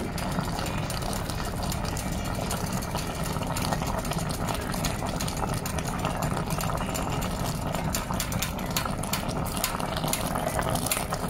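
Pot of needlefish paksiw boiling in its vinegar broth: a steady run of small popping bubbles over a low rumble.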